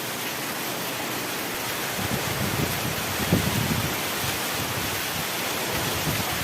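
Steady rain falling, an even hiss. From about two seconds in, irregular low rumbles join it.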